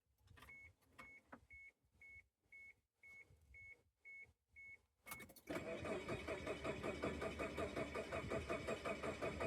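A car's warning chime beeps steadily, about two a second, then a little over halfway through the 2000 Chevy Tracker's starter cranks the engine with a fast, even rhythm and it does not fire. The fuel pump is getting no power.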